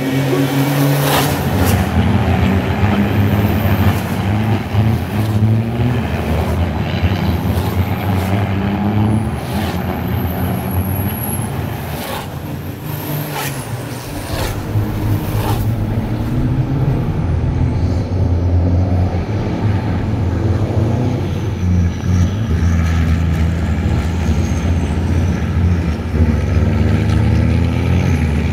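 Racing trucks' diesel engines running hard past on a wet track, the engine note stepping up and down with gear changes. Several short, sharp hisses come in the first half.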